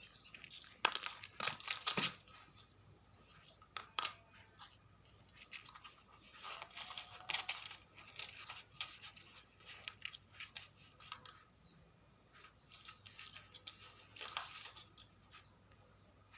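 A pet cat playing: irregular scratching and rustling in short bursts, with a few sharp clicks.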